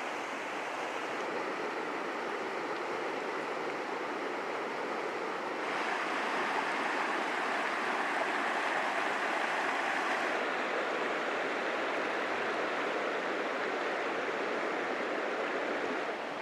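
Steady rush of flowing river water, growing louder about six seconds in.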